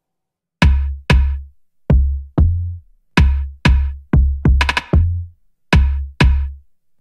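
Electronic music with a drum-machine beat of heavy bass-drum hits and sharp high hits, about two a second, starting after half a second of silence.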